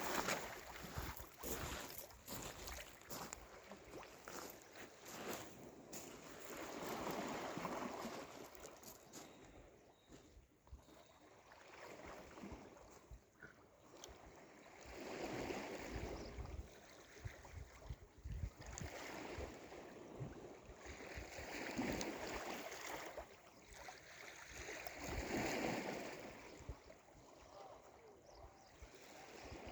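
Sea waves washing in and drawing back, swelling in surges every few seconds, with wind buffeting the microphone.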